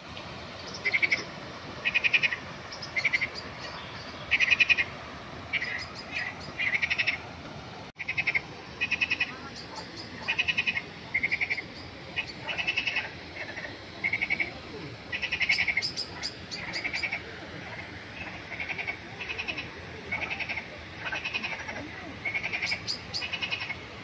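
A chorus of frogs calling from a pond: short rattling croaks, each about half a second long, following one another roughly once a second.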